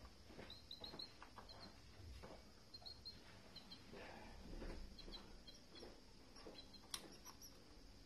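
Faint, short high-pitched canary chirps in small clusters every second or so, over soft rustling in the cage, with one sharp click near the end.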